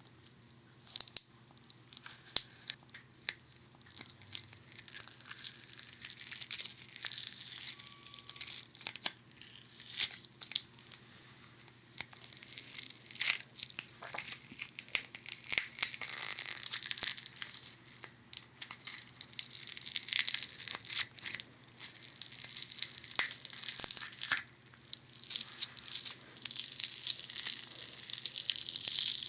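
Funny Foam foaming soap squished and worked right against a binaural dummy head's ear microphones: a close, crackling, popping fizz of tiny bubbles. It is sparse, with scattered ticks, at first, then turns denser and louder about twelve seconds in.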